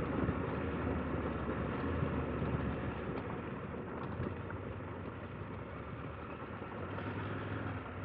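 KTM 890 Adventure R's parallel-twin engine running steadily under way on a gravel road, mixed with wind and tyre noise. It eases off slightly in the middle and picks up again near the end.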